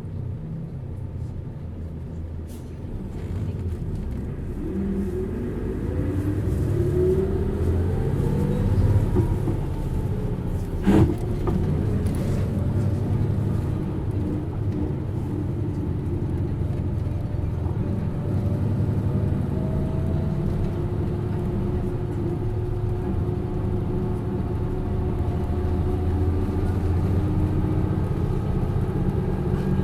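Hino U-HT2MLAA bus heard from on board, accelerating with a rising whine over its engine, a sharp knock about eleven seconds in, then pulling steadily with the whine climbing again. This bus is in poor condition and makes strong abnormal noise.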